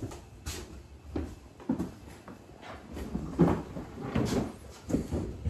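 Kitchen cabinets being opened and shut: a string of irregular light knocks and clicks.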